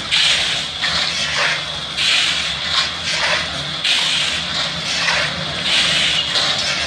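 A shovel scooping crushed stone from a gravel pile and flinging it, a gritty rushing hiss that comes again about once a second.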